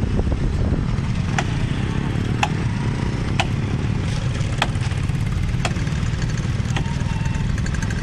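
A motorcycle engine idling steadily, with sharp knocks about once a second from branches of a fallen tree being chopped.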